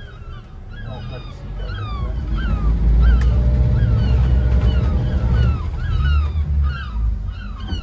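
Twin Yamaha outboard engines rumbling as the boat is driven on the joystick. The rumble swells about two seconds in and eases near the end. Short, falling, high-pitched calls repeat a few times a second throughout.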